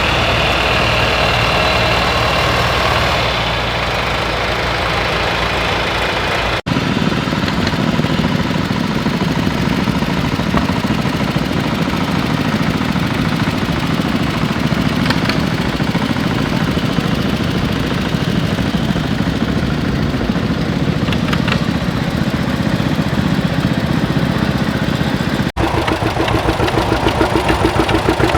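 Engines running steadily, in three stretches broken by abrupt cuts about 7 and 25 seconds in; in the last stretch a strong, even, rhythmic pulse.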